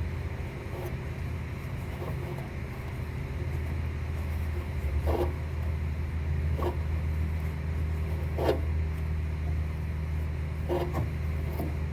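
Steady low machine hum, with a few short clicks and knocks of hand work on the Comanche 250's landing-gear bungee fitting in the second half.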